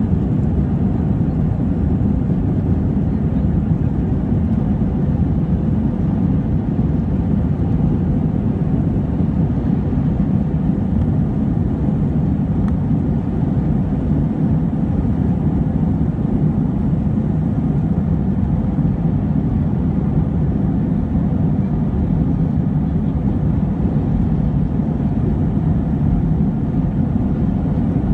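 Cabin noise of an Airbus A320 on its takeoff roll: the jet engines at takeoff power and the rumble of the wheels on the runway, a loud, deep, steady noise.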